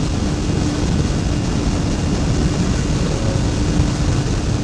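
Yamaha YZF600R's inline-four engine running at a steady highway cruise, a constant engine note under heavy wind rush.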